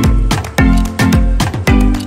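Background music with a steady, punchy beat and deep bass notes that drop in pitch.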